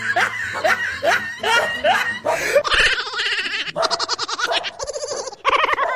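Loud human laughter, coming in repeated short bursts and then in rapid ha-ha pulses.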